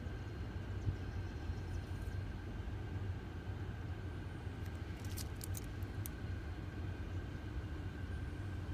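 Steady low mechanical hum with a faint thin whine held above it, and a few brief high ticks about five seconds in.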